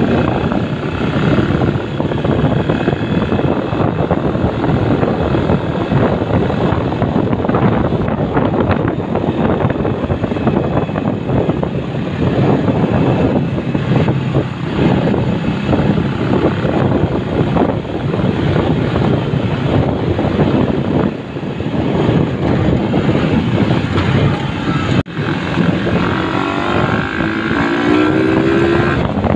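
A motorcycle riding along a road, its engine running under heavy wind noise on the microphone. There is a short break about 25 seconds in, and near the end a slightly rising engine note comes through.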